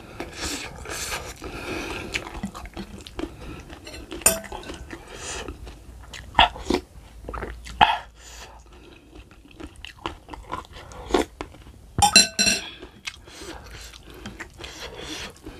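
Close-up eating sounds of a person chewing cow's foot soup with rice: wet chewing and lip smacks with irregular mouth clicks and the odd tap on a plate. A few louder sharp smacks stand out, the loudest about twelve seconds in.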